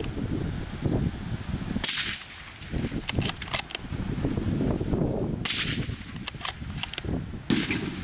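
Three rifle shots, sharp cracks about two, five and a half and seven and a half seconds in, with a few smaller clicks between them, over wind rumbling on the microphone.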